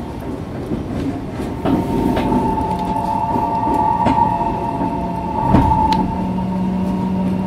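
A Fukuoka City Subway 2000 series electric train standing at a platform, its onboard equipment giving a steady hum with a higher whine. Several sharp clanks and clicks sound over it.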